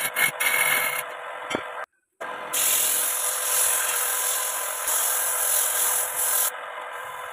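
Wooden workpiece spinning on a homemade wood lathe and being sanded by a gloved hand: a steady rasping hiss from about two and a half seconds in until shortly before the end, over the lathe's steady motor hum. Before it come short scraping strokes, then the sound drops out briefly about two seconds in.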